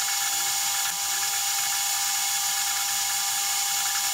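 Warco WM180 mini lathe running steadily with a thin high whine, while a flat metal file is held against the spinning metal handle to round off its stepped end, scraping against it.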